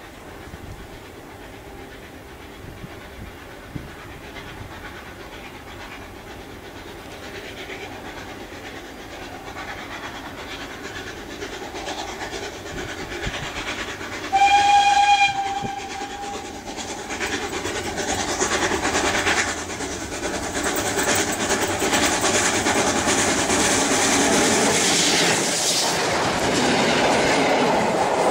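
Steam locomotive approaching along the track, growing steadily louder. About halfway through it gives one short steam whistle, about a second long. Near the end the train runs directly overhead with a clatter of wheels on the rails.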